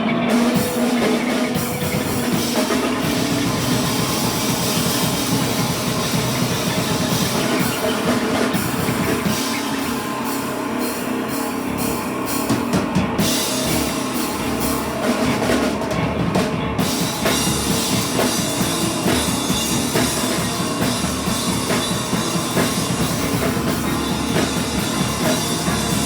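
Live band playing loud, noisy rock, with a drum kit pounding under a dense wall of sound.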